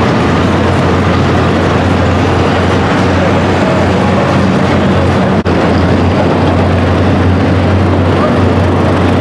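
Loud, steady engine noise from pro stock mini pulling trucks filling an indoor arena, with one split-second break a little past halfway.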